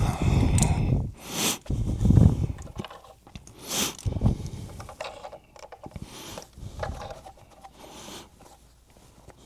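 Hands working speaker cables and jumpers onto a loudspeaker's binding posts: irregular rubbing, knocks and short scrapes, heaviest in the first couple of seconds and then fainter and scattered.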